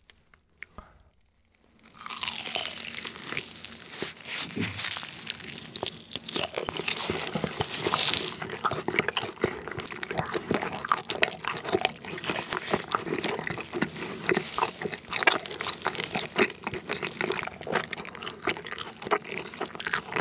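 Close-miked biting and chewing of a soft, sticky rice cake filled with sweet syrup. The chewing starts about two seconds in as a dense run of quick, wet smacking clicks.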